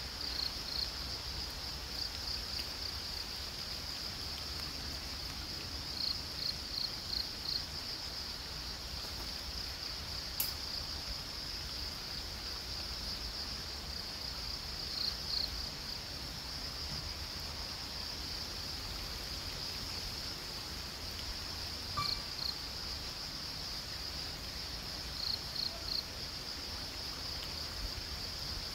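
Crickets trilling steadily in a high, even drone, with short runs of louder chirps every several seconds, over a low rumble.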